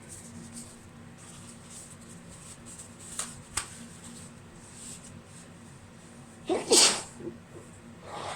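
A woman's stifled sneeze about two-thirds of the way in, brought on by chhikni snuff in an allergy-irritated nose.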